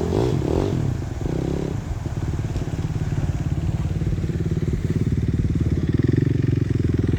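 Off-road vehicle engine running steadily, growing a little louder and fuller partway through.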